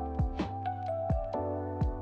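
Lo-fi background music: a slow drum beat of soft kicks and snare hits under held keyboard chords.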